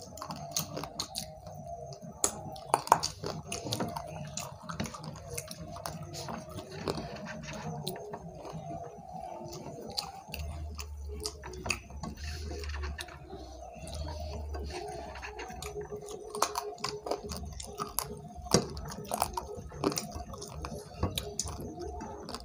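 Close-up chewing and wet mouth sounds of people eating rice and curry with their hands, with many small sharp clicks. A faint steady hum runs underneath.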